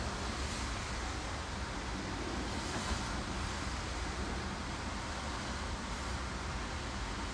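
Steady outdoor background noise: an even rushing hiss over a low rumble, with no distinct events standing out.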